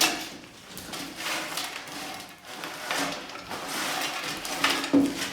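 Irregular kitchen clatter and rustling from a heavy pot, utensils and dry snack mix in a roasting pan as melted spiced butter is added, with a sharper knock about five seconds in.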